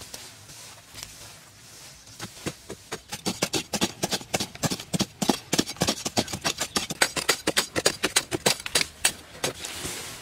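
A small hand digging tool striking and scraping into dry earth in quick repeated blows, several a second, starting about two seconds in and stopping near the end.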